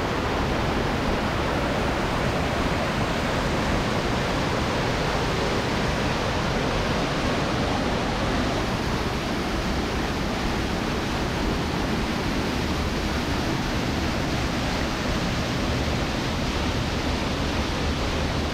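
River water rushing steadily through a rocky gorge: an even, unbroken roar of flowing water.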